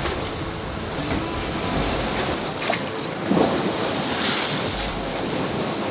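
Sailboat heeled over and beating upwind through choppy sea: water rushing and splashing along the hull, with wind buffeting the microphone and a louder splash about three seconds in.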